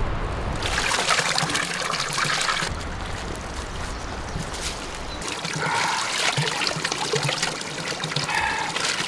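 Spring water running from a pipe spout in a stone wall and splashing onto wet ground, a steady trickling.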